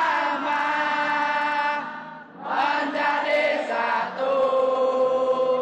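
Football supporters' crowd singing a chant together in long held notes, with a short break about two seconds in.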